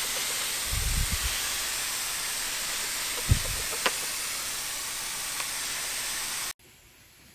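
Hand-held pump mister spraying a steady hiss of fine water mist onto the plants and soil, with a couple of dull knocks. The spray stops abruptly near the end.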